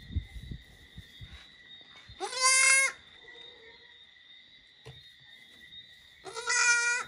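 A young Boer goat kid bleating twice, two short calls about four seconds apart.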